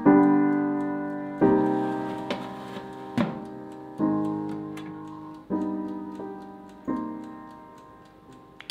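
Background piano music: slow chords, each struck and left to fade, about every one and a half seconds.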